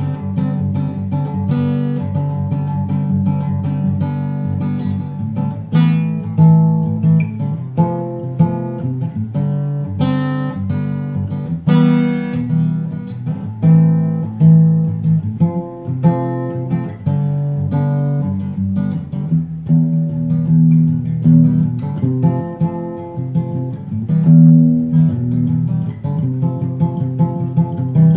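Instrumental background music on acoustic guitar: a steady run of plucked notes and chords.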